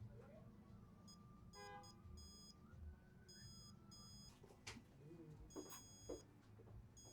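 Faint, short high-pitched beeps at uneven intervals from a multimeter on continuity test, with a few light clicks of the probes. The beeps show which pins of the phone's Type-C charging port are connected to each other and to ground.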